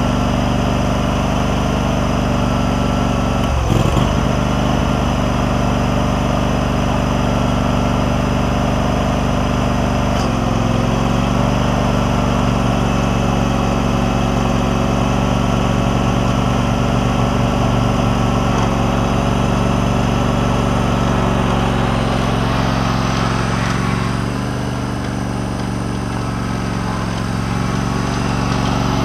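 John Deere LX188 lawn tractor's Kawasaki engine running steadily, now fed by a new fuel pump and fuel line. There is a single thump about four seconds in and a slight change in pitch about ten seconds in as the tractor is driven off. The engine grows a little quieter near the end as it moves away.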